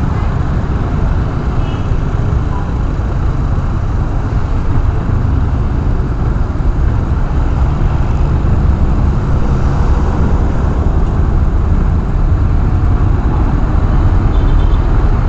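Steady road and traffic noise with a low wind rumble on a helmet camera's microphone while riding a motorcycle, loud and fairly even, building a little towards the end.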